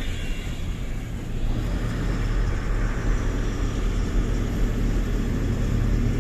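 Tata 1512 truck's diesel engine running while the truck drives along, a steady low drone mixed with road noise.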